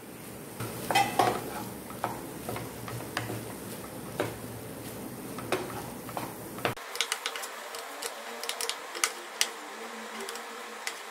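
A flat spatula scrapes and taps against a nonstick frying pan as cooked rice and green peas are stirred and mixed. The taps come quicker and sharper in the second half.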